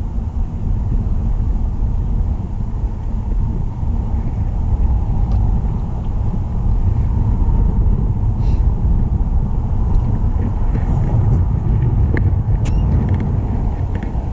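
Strong wind buffeting the camera microphone: a loud, unsteady low rumble, with a few faint clicks near the end.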